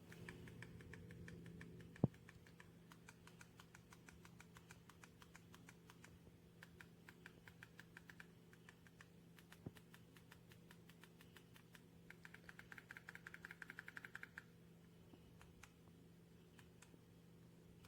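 Near silence with a steady low hum, under faint rapid clicking like typing on a keyboard; the clicking is densest a little past the middle, and a single louder click comes about two seconds in.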